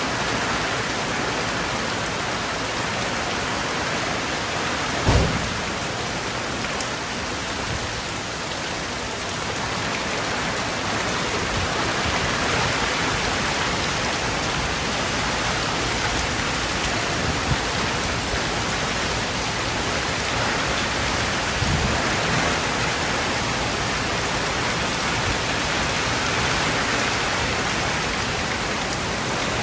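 Steady rain falling, an even hiss of drops. A short low thud comes about five seconds in, with two fainter ones later.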